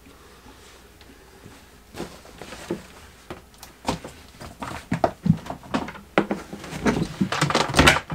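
A run of knocks and clicks that begins about two seconds in and grows busier and louder near the end, like objects being handled and bumped.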